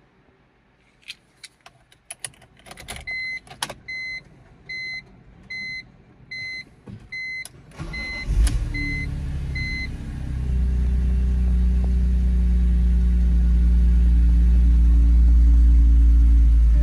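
A few clicks, then a warning chime beeping steadily, a little under a second between beeps; about eight seconds in, the 2003 BMW E46 M3's S54 inline-six cranks briefly, catches with a short flare of revs and settles into a steady cold-start idle, the idle growing a little louder about two seconds later. No VANOS rattle: the VANOS sounds clean.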